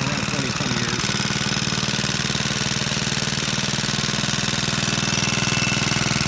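A 1948 Clinton 702-ABR6 single-cylinder, air-cooled engine running steadily with a rapid, even firing beat. It is a barn find that had not run in about 20 years.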